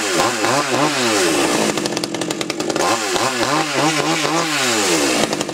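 Two-stroke Fuxtec chainsaw running, its engine revving up and falling back twice.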